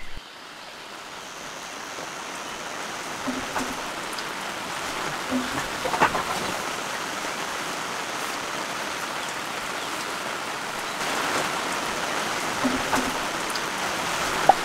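Steady rain falling, with individual drops ticking close by. It fades in over the first few seconds.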